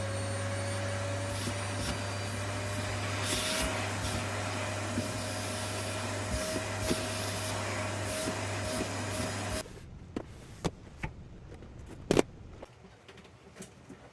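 Paper-bag vacuum cleaner running with a steady motor hum and a whine that creeps slowly up in pitch, switched off with a sudden stop about ten seconds in. A few light clicks and knocks follow, the loudest near the end.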